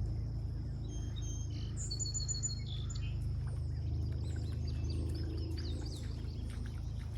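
Wild birds chirping and calling, including a quick run of five or six repeated high notes a couple of seconds in, over a steady low rumble.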